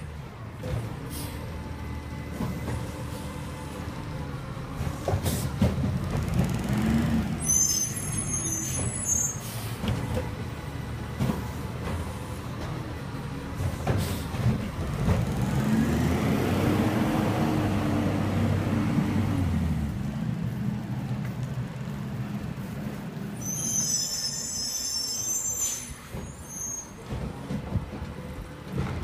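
Heil garbage truck's diesel engine running as the truck moves along, its revs rising and falling, most strongly about halfway through. Twice, once near the start and once near the end, a brief high-pitched hiss from its brakes.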